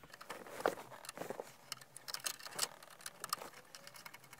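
Faint, irregular clicking and ticking of a Phillips screwdriver turning out the small screws that hold the hazard button's mount, with light taps against the plastic dash trim.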